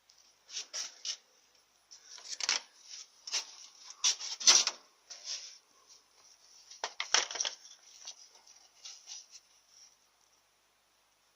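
Brake caliper of a first-generation Lada Kalina clacking and clinking, an irregular series of sharp metallic knocks, the loudest about halfway through. This is the knock the owner puts down to worn caliper guide pins.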